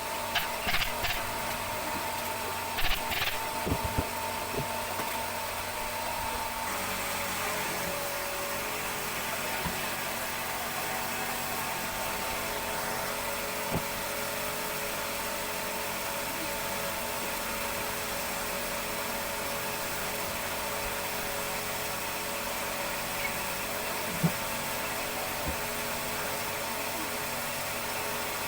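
Steady hum of a motor-driven machine, with a few sharp knocks in the first few seconds and one more near the end.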